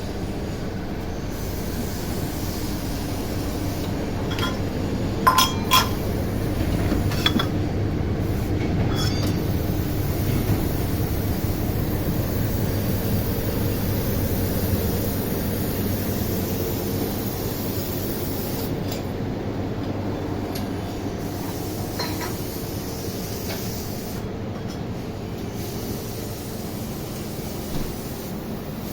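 Steady low machinery drone on a factory floor, with a few sharp metallic clinks, a cluster between about four and nine seconds in and one more later.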